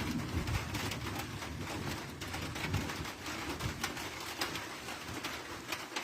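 Low rumble of distant thunder rolling on after a lightning flash, with scattered faint ticks.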